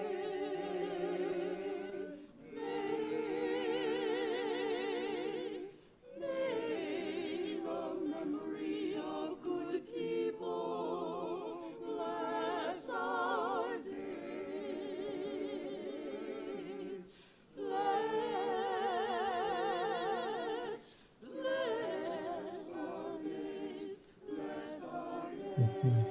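Small mixed choir singing a slow piece in sustained notes with vibrato, in long phrases separated by short breaths. A brief low thump comes near the end.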